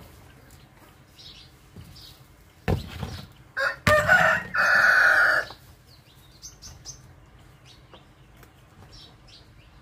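A rooster crowing once, about two seconds long, ending on a long held note. A dull thump comes just before it.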